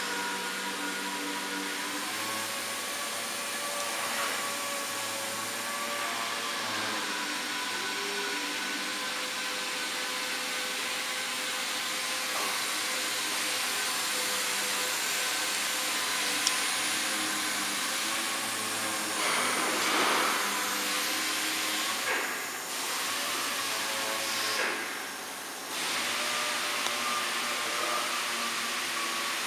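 JCUT 1330 wood CNC router running: a steady hiss of its dust-extraction fan under the whine of the machine's motors, with tones that shift in pitch a few times. A few brief louder rushes come about two-thirds of the way through.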